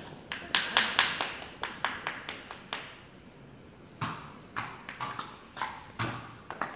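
A horse's hooves shuffling and stepping on a stable floor: a quick run of sharp knocks, a short lull, then a second run about four seconds in.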